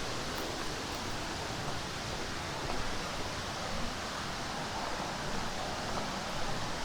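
Steady rushing of water in a mountain valley stream.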